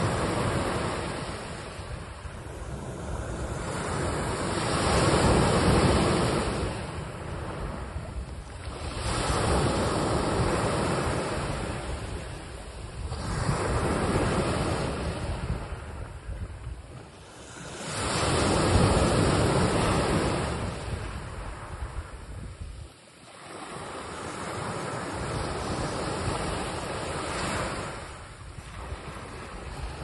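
Small waves breaking and washing up a sandy beach, the surf swelling and fading every four to five seconds.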